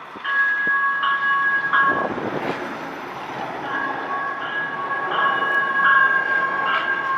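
Light-rail train's two-tone horn sounding a short blast and then a longer held blast, over the rumble of the train rolling in.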